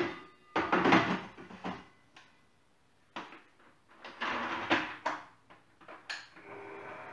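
Knocks and clatter of a steel mixing bowl being handled and set in place, then about six seconds in an electric mixer starts and runs steadily, beating egg whites.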